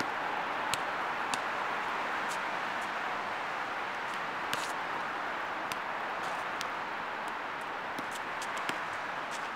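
Steady outdoor background hiss of distant traffic and wind, with a scattering of faint, sharp knocks at irregular moments.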